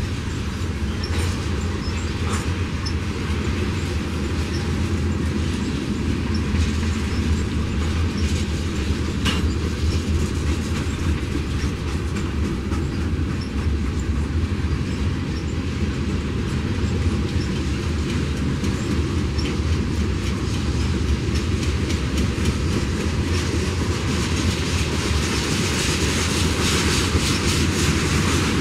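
Freight train cars rolling past: a steady rumble, with the wheels clicking and clattering over the rail joints.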